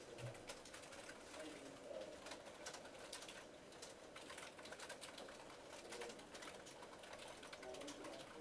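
Near-silent classroom room tone with scattered soft clicks of computer keyboards being typed on, and a few faint low sounds now and then.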